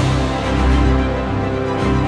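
Background music: held chords over a low bass line that changes note every second or so.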